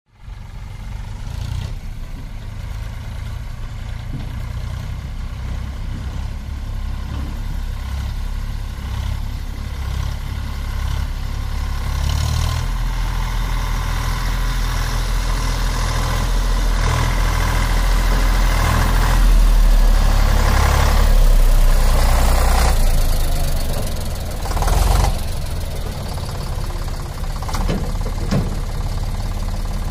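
Eicher 485 tractor's three-cylinder air-cooled diesel engine running under load as it tows a fully loaded trolley. It grows louder as the tractor approaches, peaking a little past the middle, then eases somewhat near the end.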